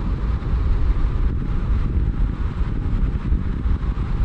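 A car driving: a steady, loud low rumble of road and wind noise, with no engine note or other sound standing out.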